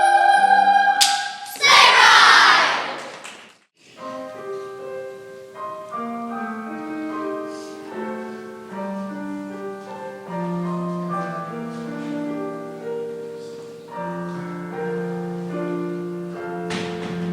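A choir's held note ends about a second in, followed by a short burst of applause that cuts off. From about four seconds in, a piano plays a moving line of notes with choir voices.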